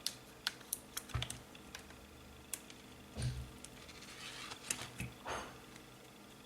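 Irregular sharp clicks, about a dozen, some in quick pairs, like buttons or keys being pressed, with a couple of dull handling bumps and soft rustling.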